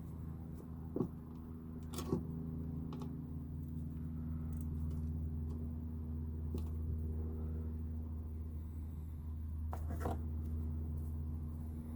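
Irregular light clicks and metallic knocks from hand tools working a hose clamp on a power steering hose, a few sharp ones scattered through, over a steady low hum.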